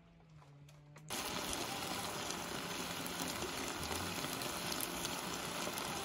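Marinated meat sizzling on a hot griddle pan: a steady, dense hiss that starts abruptly about a second in.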